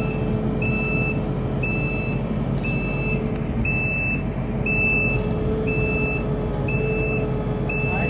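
A heavy machine's backup alarm beeping steadily, one high beep about every second, over a machine engine running steadily.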